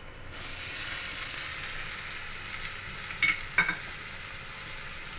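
Sliced onions sizzling as they hit hot melted butter in a metal kadai: the hiss starts just after the start and holds steady. Two brief knocks come a little past the middle.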